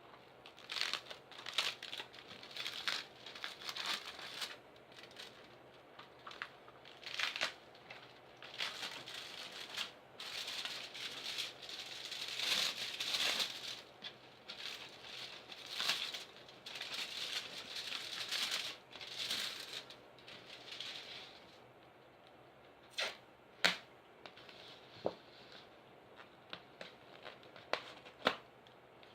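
Packing material crinkling and tearing in repeated rustling bursts as a parcel is unwrapped by hand. Near the end the rustling stops and a few sharp clicks and taps are left.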